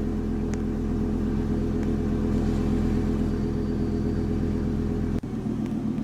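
Video-game idling diesel engine of a Blue Bird Vision school bus: a steady low engine drone at constant pitch, with a brief dropout about five seconds in.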